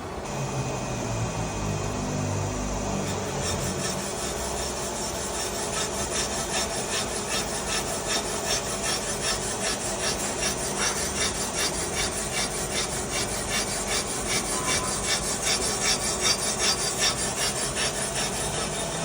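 Line boring bar cutting the main bearing bores of a Kawasaki Ultra 300LX jet-ski crankcase: a steady metallic scraping that pulses evenly several times a second and grows louder toward the end. A low machine hum sits under the first few seconds.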